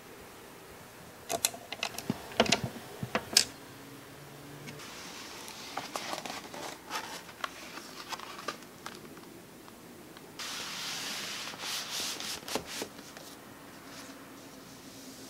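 Vinyl LP and cardboard album jackets being handled: a cluster of sharp clicks and knocks, then cardboard and paper rubbing and sliding, loudest in a longer scrape about two-thirds of the way through.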